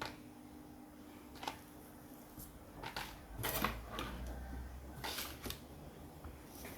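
Scattered small clicks and light scrapes of laptop parts and tools being handled at irregular moments, while the old, burned-out thermal paste is cleaned off the processor.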